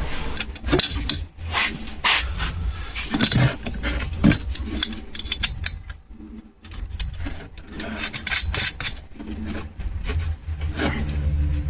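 Metal parts being handled and fitted: irregular clinks, knocks and scraping of steel pieces and bolts, with a short pause about halfway through.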